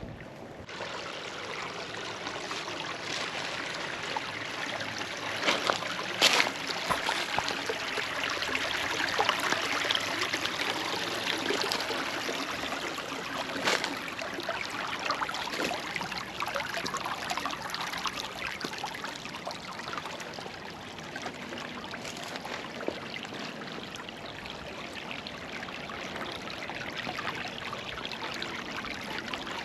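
Small creek flowing and trickling over rocks: a steady rush of water with fine, flickering splashes, and a few sharper clicks about six seconds in and again near fourteen seconds.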